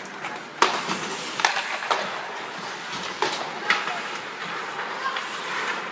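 Ice hockey play on an indoor rink: several sharp clacks of sticks and puck on the ice, the loudest about half a second in, over a steady hiss of skates and background voices.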